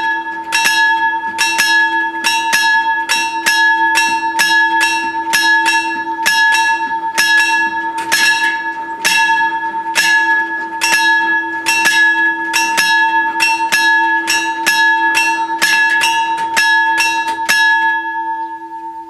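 Two electric bells of an FS 64 railway level crossing ringing with rapid, even strikes: the warning that the crossing is closing for an approaching train. The strikes stop near the end, leaving a ringing tone that lingers and fades.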